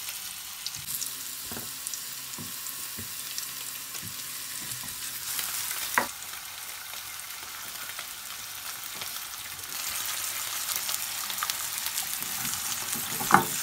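Whole mushrooms sizzling and crackling in foaming butter and rapeseed oil in a frying pan. A single knock comes about six seconds in, and the sizzle grows louder from about ten seconds in.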